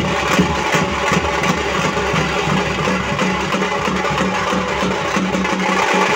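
Band-set drumming: metal-shelled snare drums and a large bass drum beaten with sticks in a fast, loud rhythm, over a steady droning tone.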